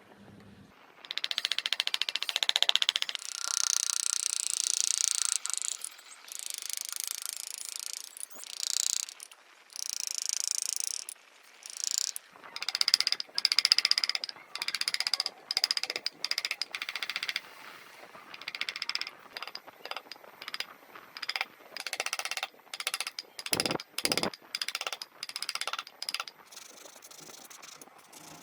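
Wood being carved or shaped with tools in short, repeated strokes: bursts of high scraping or grinding noise that stop and start many times, with a couple of sharper knocks about two-thirds of the way in.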